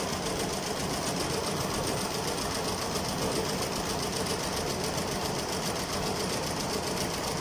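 Richpeace multi-head computerized embroidery machine stitching, its needles running at a steady, fast rhythm without pause.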